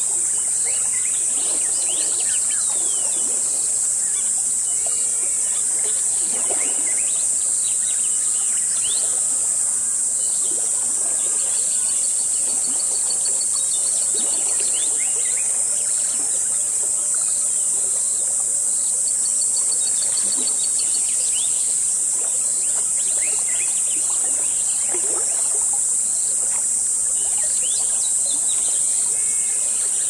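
Jungle river ambience: a steady high-pitched insect chorus over the babble of a stream, with scattered bird calls and a rapid high trill heard twice.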